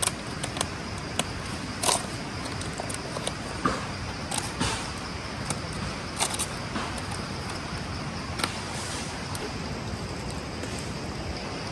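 Sal leaves crackling and rustling as a large leaf plate is handled, scattered short clicks over a steady background hiss.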